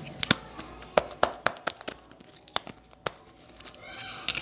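Glitter slime being pulled and stretched by hand close to a microphone, giving irregular sharp sticky pops and clicks, with a quick cluster of them near the end.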